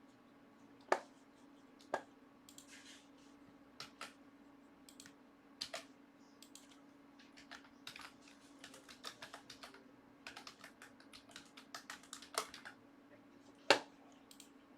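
Computer keyboard typing with mouse clicks: irregular light key taps, denser in the second half, with a few louder clicks, over a faint steady hum.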